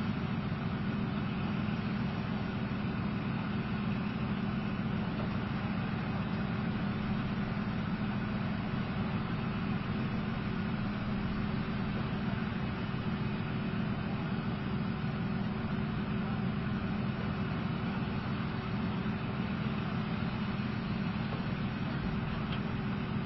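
Leopard 2A4 tank diesel engines idling: a steady low rumble with an even hum that does not change in pitch or level.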